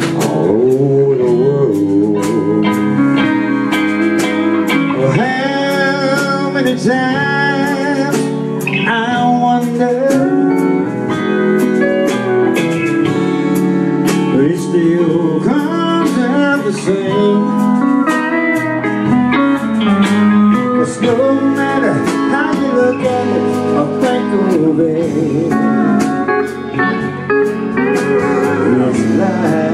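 A band playing an instrumental break of a slow soul ballad: a lead guitar with bending, gliding notes over bass, keyboard and drums keeping a steady beat.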